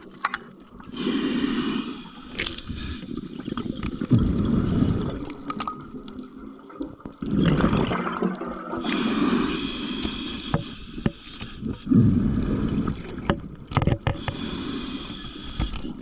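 Water sloshing and gurgling around the spearfisher, swelling and fading every few seconds, with scattered small clicks and knocks.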